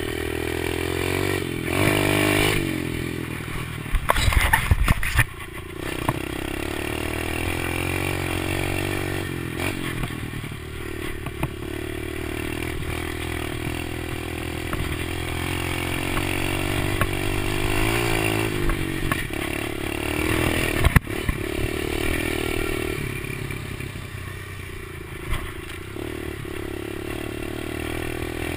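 Kawasaki KLX110 pit bike's small four-stroke single-cylinder engine being ridden along a dirt trail, its pitch rising and falling as the throttle opens and closes. There is a burst of clattering about four seconds in and a single sharp knock about twenty-one seconds in.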